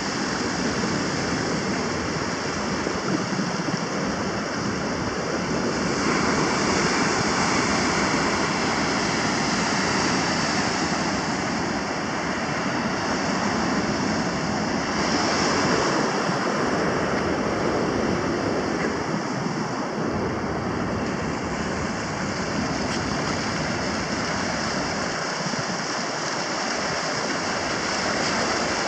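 Ocean surf washing up a sandy beach and around rocks, a steady rush of breaking foam that swells louder a couple of times as bigger waves come in.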